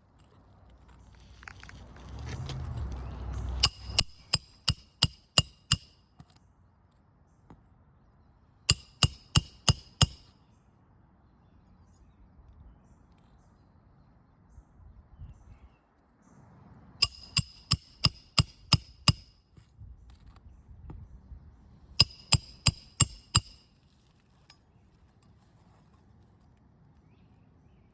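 Roofing hammer striking a roof snake to drive nails under a lifted asphalt shingle: four quick runs of four to seven metallic, ringing blows each, with a rustle before the first run.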